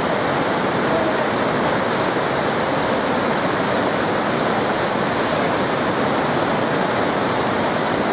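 Waterfall pouring, a loud steady rush of falling water with no change.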